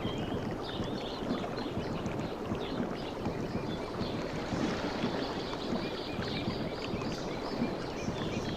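Water lapping and splashing steadily, with faint high bird chirps now and then.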